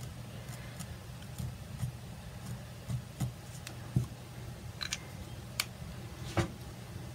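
Scattered light taps and clicks of a fine-point black pen tracing on linen laid over a paper pattern, then the pen laid down on the wooden tabletop, over a low steady hum.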